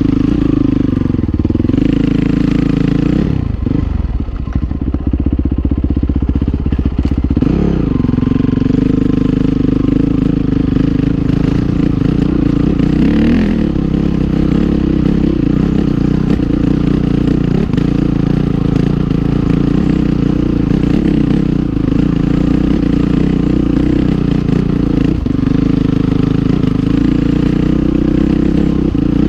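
Honda CRF450R dirt bike's single-cylinder four-stroke engine running under a rider on a trail, engine speed rising and falling with the throttle. About three to four seconds in the revs drop off, then pick up again a few seconds later.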